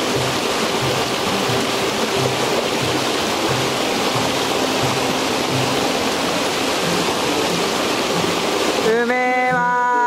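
Mountain stream rushing over rocks, a steady hiss of water, with background music keeping a soft beat about twice a second. Near the end a person lets out a long 'ahh' that rises and is then held.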